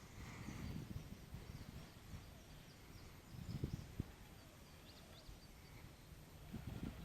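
Faint outdoor ambience: low rustling and handling noise with a few thumps a little past the middle, and a few faint, short, high bird chirps.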